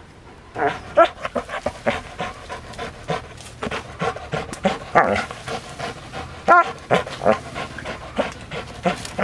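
Rottweiler panting hard in quick, irregular bursts, with short strained pitched noises, while it grips a spring-pole rope in its jaws and tugs.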